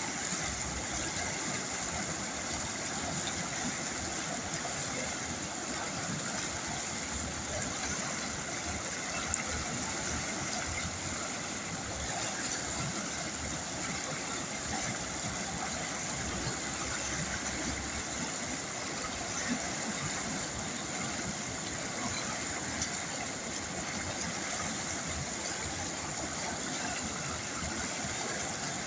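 A river flowing: a steady, unbroken rush of moving water, with three brief faint clicks partway through.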